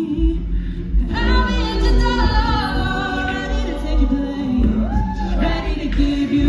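A cappella group singing amplified through microphones, close vocal harmonies over a low sung bass line. A brighter lead voice comes in about a second in over the backing voices.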